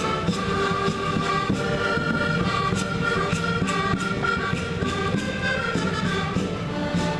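Concertinas playing a traditional folk tune in held, reedy chords over a steady percussive beat.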